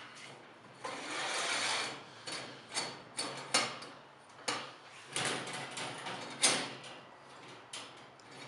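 Homemade wire-mesh fox trap being set by hand: the hinged mesh door is lifted and the slide bar raised, giving a scrape and then a string of metal clanks and rattles, the loudest about six and a half seconds in.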